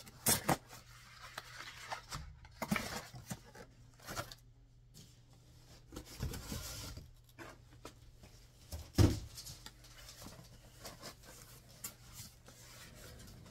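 Packaging rustling and tearing, with items being handled in a cardboard box: scattered short rustles and clicks, and one louder knock about nine seconds in.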